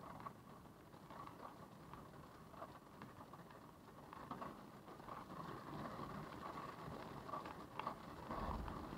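Heavy rain pattering on a stationary car's roof and windshield with wind gusting outside, heard faintly from inside the cabin through a dashcam microphone. It grows louder in the second half, with a low wind buffet near the end.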